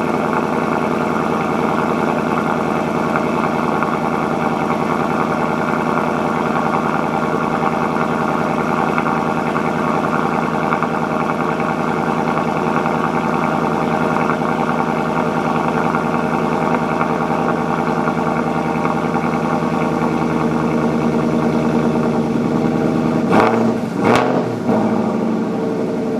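Ford Mustang V8 idling steadily through a performance exhaust. Near the end there are two brief disturbances.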